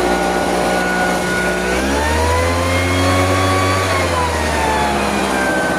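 A motor running with a pitched whine that rises about two seconds in, holds, and falls back near the end.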